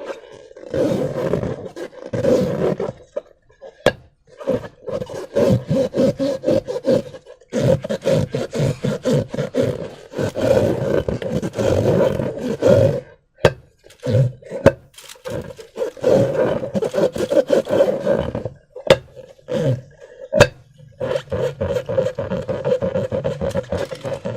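Hands working slime and rubber balloons: wet squelching with rough rubbery rubbing and squeaking, in irregular bursts broken by brief pauses and a few sharp clicks.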